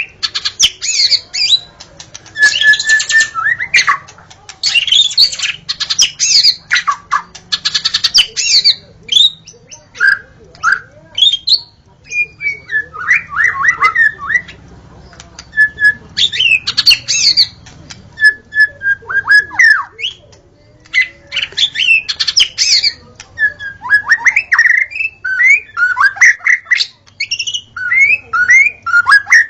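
Wild white-rumped shama singing: a long, varied song of clear whistles, sliding notes and fast chattering trills, delivered in phrases with short pauses between them.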